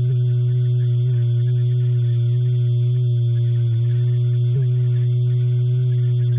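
A single kick drum run through 48,840 chained Soundgoodizer instances, the FL Studio maximizer plugin, squashed into a loud steady hum: one constant low tone with a few fainter overtones and a high hiss. The pitch bumps briefly about a second in and again past four and a half seconds.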